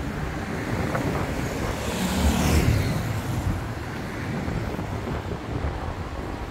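Street traffic on a rain-wet road: a car passes with its tyres hissing, swelling to a peak about two to three seconds in and then fading, over a steady low rumble of engines.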